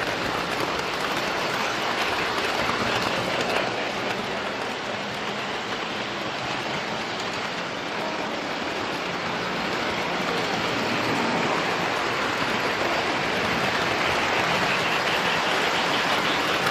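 A train running past, a steady noise of wheels on the rails that grows slightly louder toward the end.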